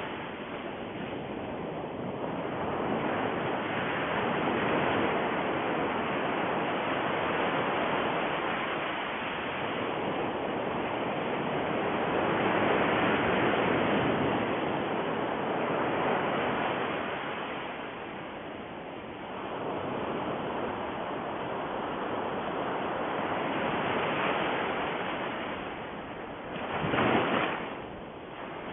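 Steady rushing noise with no pitch, swelling and easing every few seconds, with a brief louder surge near the end.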